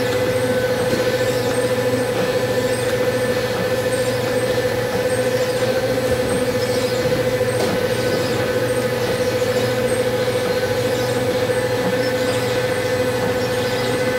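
Shinpung SP-630 rice-cake encrusting machine running steadily as it forms cream-cheese-filled chapssaltteok: a constant motor hum with a steady mid-pitched tone and a faint regular ticking.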